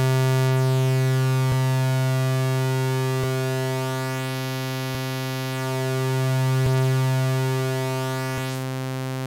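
Sytrus soft-synth tone of a saw wave layered with a square wave, held on one low buzzy note. Its tone and loudness shift slowly, sagging in the middle and swelling again, as the saw wave's phase is moved against the square wave's. A faint click comes about every 1.7 seconds where the note retriggers.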